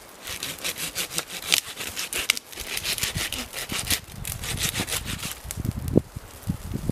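Hand saw cutting through a woody shrub stem in quick back-and-forth strokes, about four or five a second, pausing briefly twice. A few dull knocks follow near the end.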